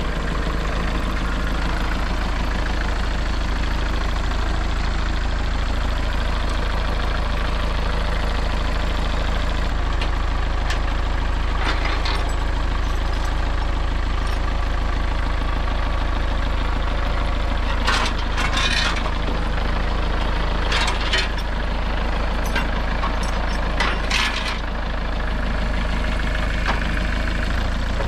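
Kubota tractor's diesel engine idling steadily, with a few short metal clanks and rattles in the second half.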